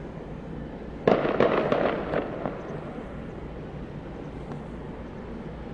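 A rapid string of sharp cracks and pops starting about a second in and dying away within about a second and a half, over a steady low hum.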